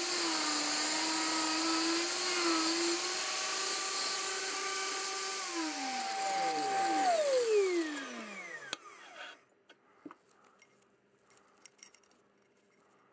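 Angle grinder running free in a sliding mitre jig just after a cut through steel, then switched off: its steady whine falls in pitch as the disc spins down, with a second falling whine close behind, both gone about eight seconds in. After that, a few light clicks of steel being handled.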